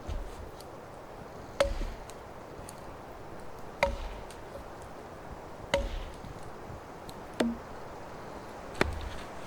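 Wood being chopped with an axe: five sharp strikes, roughly two seconds apart, some with a brief ring after the blow.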